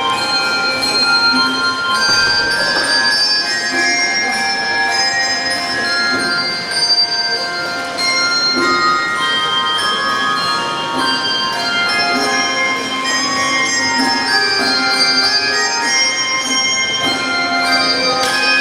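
Handbell choir playing a piece, many bells ringing together in overlapping held chords that change continually.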